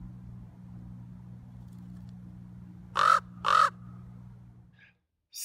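Common raven calling twice, two short calls about half a second apart, over a steady low hum that cuts out near the end.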